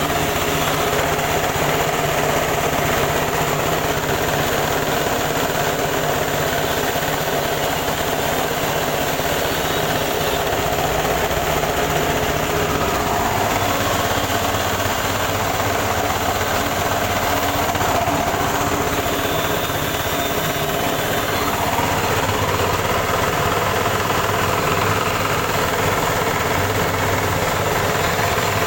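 Carltoon KD 350 rice huller machine running steadily under its drive engine, a constant mechanical drone with vibration.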